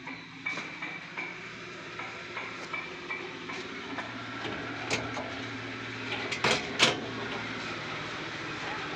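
Keys clicking and jangling in the lock of a steel almirah's small built-in locker. Near the end, a couple of loud metal clanks come as the thin sheet-steel locker door is shut.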